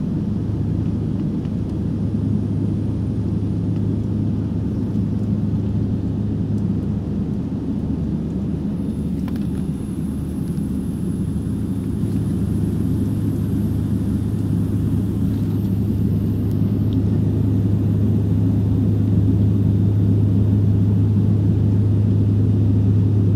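Cabin noise of a Beechcraft 1900D twin turboprop climbing after takeoff: a steady low propeller drone over engine rumble, heard from inside the cabin, growing slightly louder near the end.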